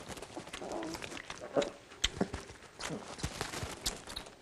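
White lion cub suckling milk from a baby bottle: irregular sucking and smacking clicks.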